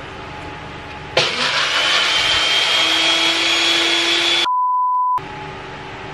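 Small personal blender running for about three seconds, grinding crunchy Flamin' Hot Cheetos into crumbs, with a steady motor whine that rises slightly. It cuts off abruptly into a short, pure beep tone.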